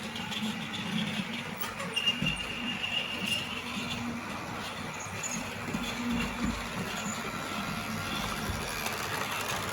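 Battery-powered Lego Duplo toy train running on its plastic track: a steady whirring with a few small clicks.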